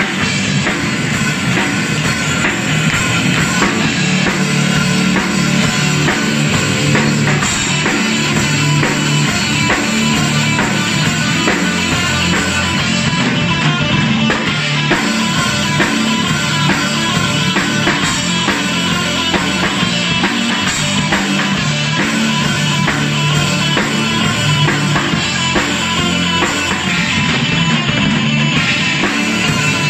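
Live metal band playing loud and without a break: distorted electric guitars, bass guitar and a drum kit.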